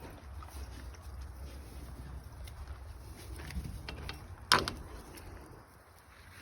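A door being slid along and shut: a low rolling rumble with a few small clicks, ending in one sharp clank about four and a half seconds in.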